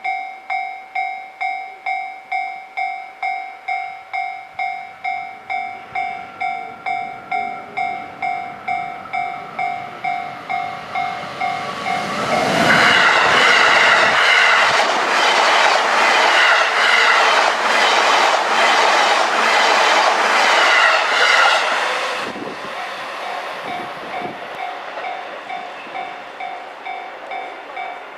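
Japanese level-crossing warning bell ringing about twice a second. Roughly midway an E233-series electric train passes close by for about ten seconds, its wheels clattering over the rail joints and drowning out the bell. The bell keeps ringing, fainter, after the train has gone.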